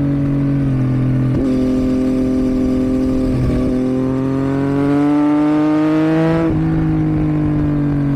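2022 Yamaha MT-09's three-cylinder engine through a Roadsitalia catalysed aftermarket exhaust, ridden on the road. Its note jumps up twice, climbs steadily as it accelerates, then drops sharply about six and a half seconds in and eases down.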